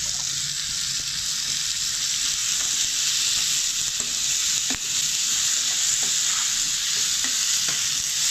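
Sliced onion and chopped tomato frying in hot oil with mustard seeds, cumin and ginger-garlic: a steady sizzle, the tempering for a sambar, with a few light taps of the spoon as it is stirred.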